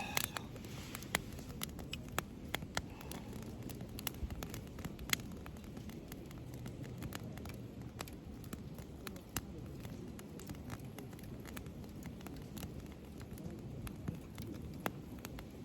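Wood campfire crackling, with irregular sharp pops, more frequent near the start and sparser later, over a steady low rumble.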